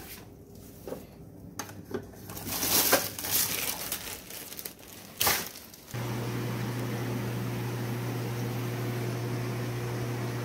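Irregular handling noises, with a few louder bursts about three and five seconds in. Then, from about six seconds in, a steady hum and hiss of the running reef aquarium's equipment.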